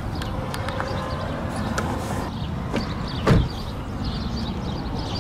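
The rear passenger door of a 1996 Toyota Crown S150 is swung shut and closes with one solid thump about three seconds in. A few light clicks come before it.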